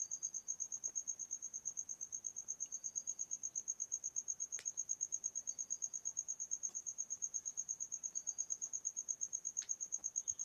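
A cricket chirping steadily, a high-pitched pulsing trill at about seven pulses a second, with two faint clicks, one midway and one near the end.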